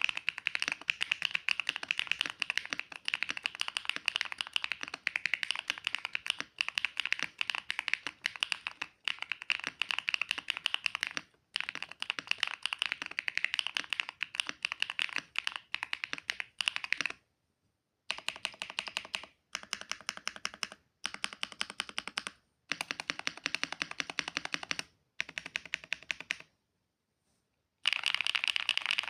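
Monsgeek M3 mechanical keyboard being typed on fast, dense runs of key clacks that stop briefly several times, with a longer pause near the end.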